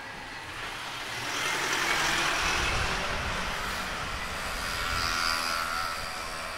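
A vehicle passing close by, its noise swelling about a second in and staying loud before easing off, with a faint high squeal near the end.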